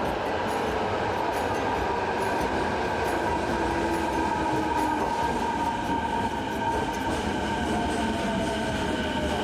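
Electric train running on the rails: a steady noise of wheels and running gear with several high whining tones. One tone falls in pitch over the last few seconds, and light regular clicks come through the first half.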